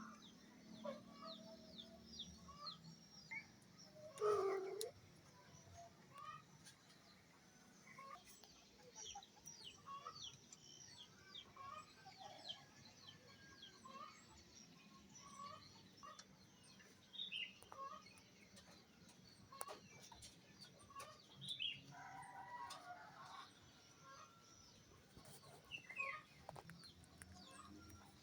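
Faint bird calls: many short chirps repeating throughout, with one louder call about four seconds in.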